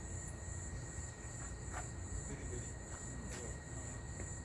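Insects chirring: a steady high-pitched, slightly pulsing drone, over a constant low rumble and a few faint short taps.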